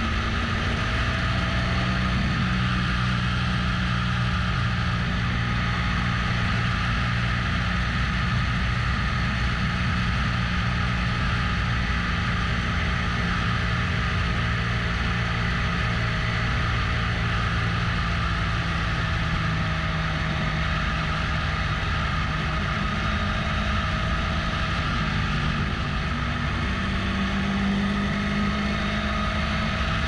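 Motorcycle engine running at low road speed, a steady drone that rises and falls a little in pitch, under a steady hiss of wind and road noise.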